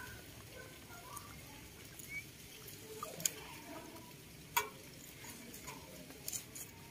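Faint nibbling and leaf rustling from a rabbit and a baby macaque eating fresh greens. There are soft scattered ticks, and two sharper clicks about three and four and a half seconds in.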